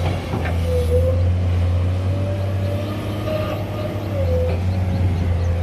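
Heavy diesel machinery running steadily with a deep, even hum, and a whine above it that rises and falls slightly in pitch.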